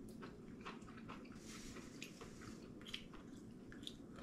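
A person eating and chewing with small wet mouth clicks over a faint, steady low room hum. A couple of sharper clicks come about three and four seconds in.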